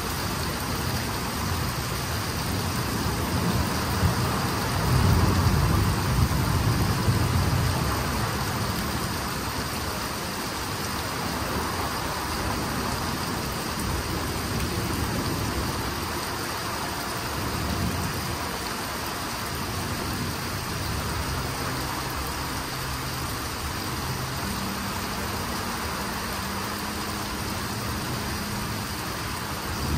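Steady heavy rain pouring down on trees and ground during a thunderstorm, with a low rumble swelling up about four to eight seconds in.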